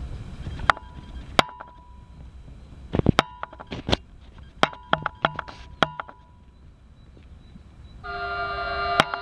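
Horn of an approaching electric multiple-unit passenger train: a loud chord of several steady tones that starts about eight seconds in. Before it, scattered sharp clicks and knocks, some with a short ringing tone.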